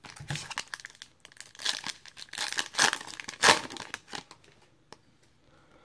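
A trading-card pack wrapper being torn open and crinkled in the hands. There are rapid crackling rips for about four and a half seconds, then it goes quiet.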